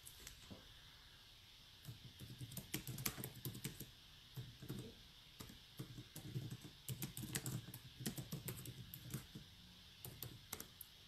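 Typing: a fast, irregular run of soft taps and clicks, starting about two seconds in and stopping shortly before the end.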